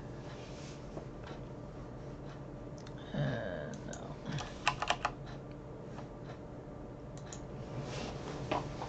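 Computer keyboard and mouse clicks over a low steady hum: a quick run of four sharp clicks about halfway through, then a couple of single clicks later.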